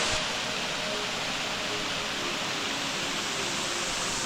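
Steady rushing of a jungle waterfall, an even hiss of falling water.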